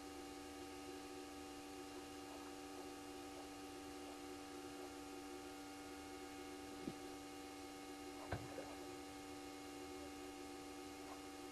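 Steady electrical hum made of several steady tones, with two faint short knocks about seven and eight seconds in.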